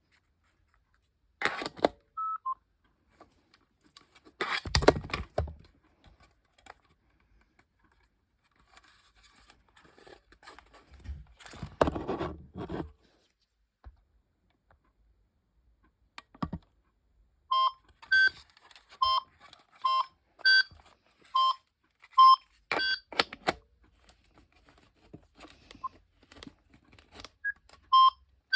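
GreenLyca GL70281 telephone being handled, with clicks and a loud thump. From about two-thirds of the way in come short electronic key beeps, roughly one every 0.7 s at two alternating pitches, as its buttons are pressed.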